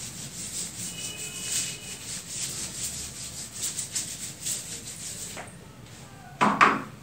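Duster wiping marker off a whiteboard in repeated soft rubbing strokes, about two or three a second, stopping about five seconds in; a short, louder rustle or knock follows near the end.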